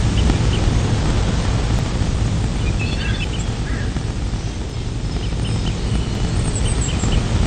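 Steady outdoor ambience with a low rumble. Faint short high chirps recur now and then, and there is a brief cluster of high sounds about three seconds in.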